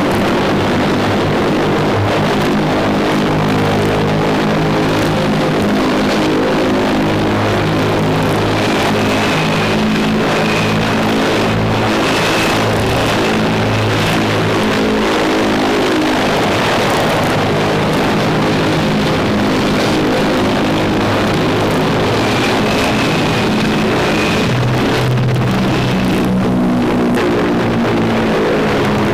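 Convair B-36 Peacemaker's six pusher piston engines running at high power, a loud, steady droning roar whose pitch shifts every few seconds as the bomber rolls down the runway.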